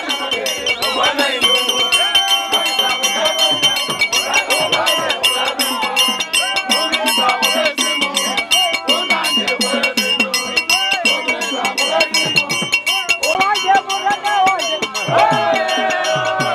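Lively music with a fast rattling shaker-and-bell rhythm and voices singing or chanting, over crowd noise.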